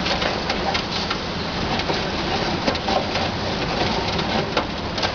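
High-reach demolition excavator's attachment crunching through the top of a concrete wall, with rubble cracking and pattering down over the steady run of the machine. Frequent small cracks and clicks ride on a constant noisy background.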